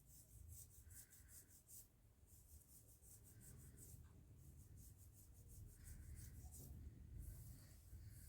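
Fingers rubbing and scratching through hair on a scalp, the crackling of 'hair cracking' massage. The sound comes in quick runs of faint, crisp scratches, several a second, with short pauses between runs.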